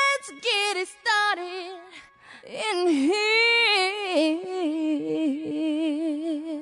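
A solo high voice singing long, bending held notes with vibrato, unaccompanied, as the intro to a song.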